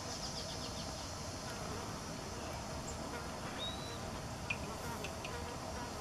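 Steady insect buzzing, with a few faint, short, high chirps and one sharp tick about halfway through.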